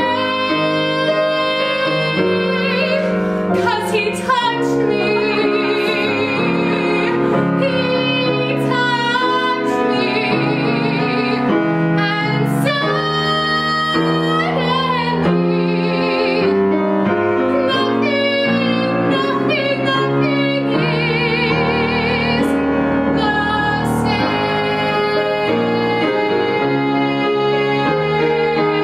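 A woman singing a musical theatre song in full voice with wide vibrato, accompanied by grand piano.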